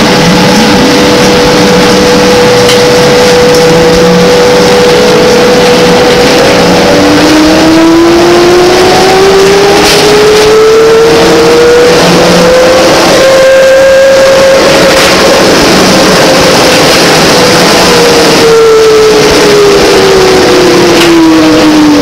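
Brown Boveri-equipped GM New Look trolleybus heard from inside while under way: its traction-motor whine climbs in pitch as the bus gathers speed, levels off about halfway through, then falls as it slows toward the end. Underneath are a steady whine and road noise.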